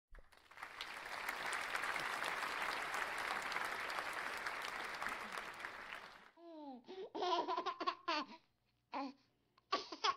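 Applause with crowd chatter for about six seconds, then it stops suddenly and a few short, high, laugh-like squeals follow, some falling in pitch.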